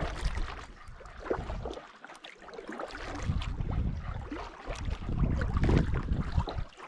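Canoe paddle strokes splashing and dripping in the water, with wind rumbling on the microphone that drops away for a moment about two seconds in.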